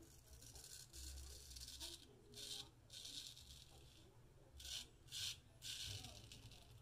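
Straight razor scraping through lathered stubble on the neck, in about six short strokes that rasp faintly.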